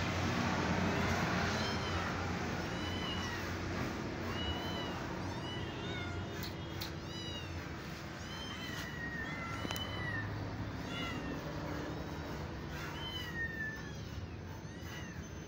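Several kittens mewing over and over, short high-pitched calls that overlap one another, with a steady low hum underneath.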